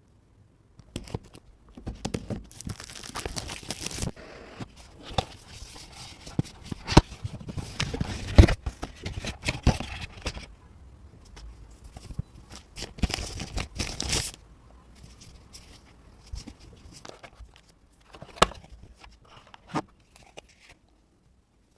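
A phone's retail packaging being opened by hand: plastic wrap tearing and crinkling, with rustling handling of the box. There are a few sharp clicks or taps, the loudest about eight seconds in.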